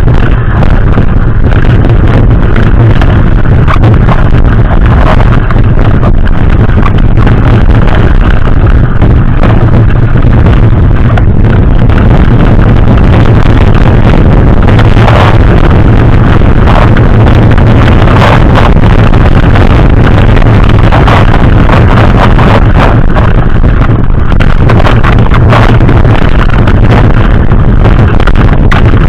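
Heavy wind buffeting on the microphone of a camera riding on a mountain bike in motion, with frequent short knocks and rattles from the bike.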